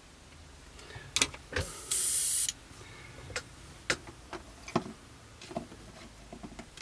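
A short, loud hiss of compressed air from an airbrush, lasting about half a second, two seconds in. Light clicks and knocks from the airbrush and its colour cup being handled come before and after it.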